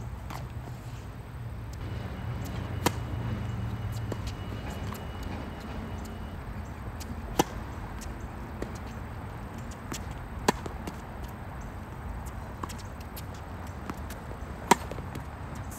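Tennis ball struck by racket strings on a hard court during a rally: four sharp pops a few seconds apart, with fainter ticks between them.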